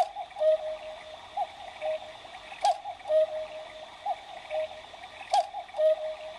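Battery-powered cuckoo clock playing its hourly tune: small thin notes in a short loop, each round starting with a sharp click, about three times. The owner puts its weak, sad sound down to the batteries going flat.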